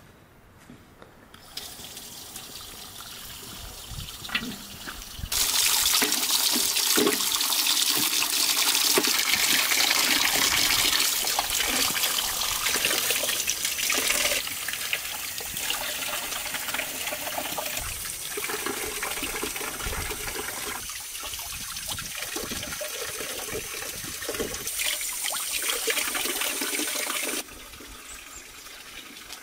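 Water running from an outdoor tap into a metal basin as green peppers and carrots are rinsed under it, with splashing and a few knocks from handling. The flow is soft at first, runs loud from about five seconds in, and cuts off suddenly near the end.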